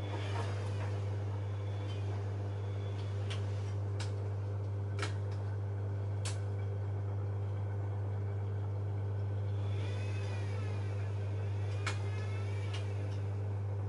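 Bosch Maxx WFL 248Y washing machine running: a steady motor hum with scattered sharp clicks, and a brief wavering swish about ten seconds in.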